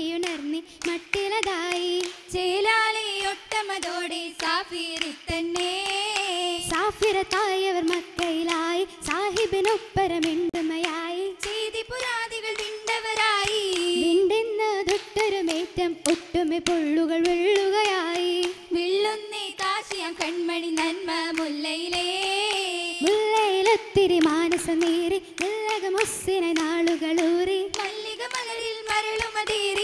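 Female voices singing an Oppana (Mappila song) melody, accompanied by the dancers' frequent, sharp rhythmic hand claps.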